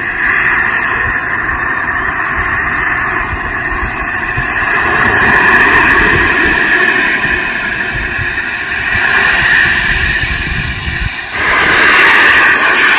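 Radio-controlled model jet's engine running with a high whine, wavering with throttle as it taxis, then spooling up louder about eleven seconds in for the takeoff run.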